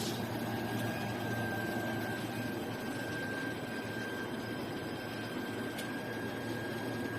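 High-frequency plastic welding machine running a weld cycle: a steady hum with a faint high whine, and a single click about six seconds in.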